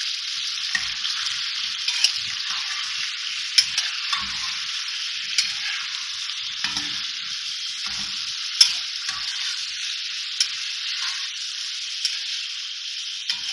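Raw chicken pieces sizzling steadily in hot oil in a karahi, frying until the meat turns white. A metal spatula scrapes and knocks against the pan now and then as the pieces are stirred, with the sharpest knock a little past the middle.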